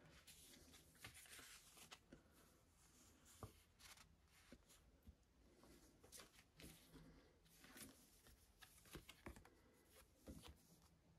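Faint rustling and light taps of paper and card being handled: printed inserts and a sticker sheet slid out of a cardboard album sleeve and picked up, with short clicks scattered throughout.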